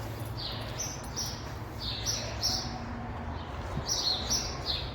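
Small birds chirping: a string of short, high chirps, some falling in pitch, coming in quick groups of two or three, over a steady low hum.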